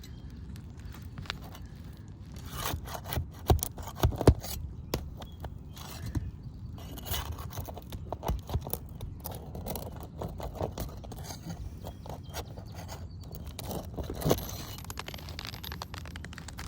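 Metal tool scraping under asphalt roof shingles and prying at overdriven roofing nails to work them loose, with scattered clicks and two sharp knocks about three and a half and four seconds in.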